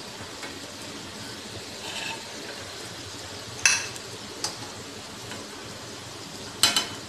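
Semolina dough balls deep-frying in hot oil, a steady sizzle, while a metal slotted ladle turns them, clinking against the pan about halfway through and again near the end.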